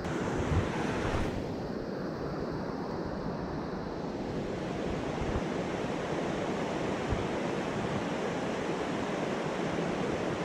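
Mountain stream water rushing steadily over rocks, with a little wind on the microphone and a brief bump near the start.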